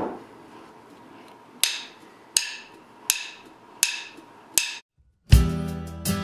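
Drumsticks clicked together five times at an even pace, counting the band in. About five seconds in, the full band starts the song with a loud first hit.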